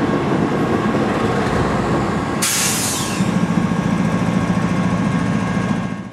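Freight train rolling on the rails with a steady rumble, a short burst of air hiss about two and a half seconds in, then a steady low hum; the sound drops away at the very end.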